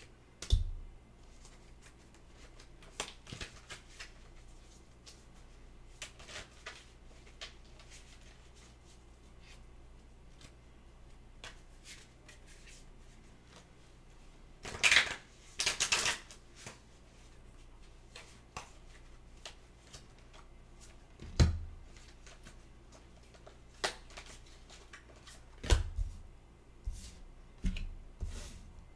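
Tarot cards being shuffled and laid out on a table: scattered short swishes and taps of cards, loudest in a cluster about halfway through, with a few low thumps.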